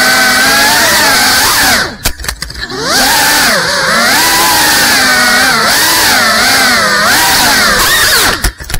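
GEPRC Cinelog 35 cinewhoop drone's motors and propellers whining, the pitch swinging up and down with the throttle. About two seconds in the whine drops out for about a second with a few clicks, then comes back. Near the end it breaks up into several sharp knocks and cuts off.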